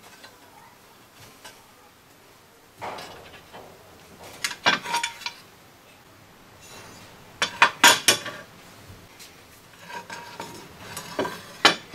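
Clinks and knocks of an aluminium camshaft oil seal retainer being handled on a workbench while a new oil seal is pushed into it by hand. They come in four short clusters, the loudest about eight seconds in.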